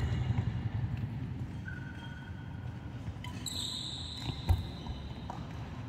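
Badminton rally on an indoor court: a sharp racket hit on the shuttlecock about four and a half seconds in is the loudest sound, with brief high squeaks of shoes on the court mat and the low hum of the hall.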